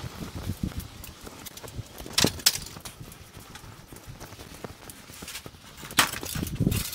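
Hand truck with a clothes dryer rolling over stamped concrete: the wheels and load clatter and knock, with heavier thumps near the end as the dryer is set down.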